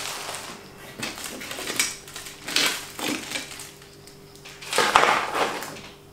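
Kit parts and packaging being handled and pushed aside: irregular rustling with a few clattering knocks, the loudest about five seconds in.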